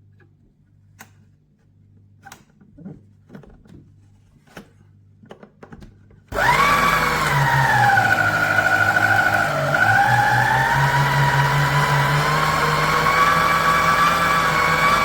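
Electric meat grinder motor switched on about six seconds in, running with a loud steady whine whose pitch sags briefly partway through. Before it starts there are a few light clicks and knocks of handling.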